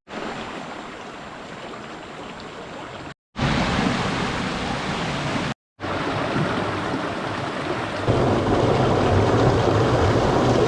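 Rushing water from a stream or waterfall, a steady wash of noise, heard in several short clips joined by abrupt cuts. It gets louder from about three seconds in, and louder again for the last few seconds.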